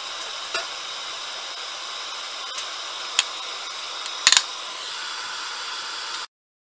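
Steady hiss with a few light clicks. About four seconds in, three sharp knocks in quick succession as things are handled on a bamboo cutting board. The sound cuts off suddenly near the end.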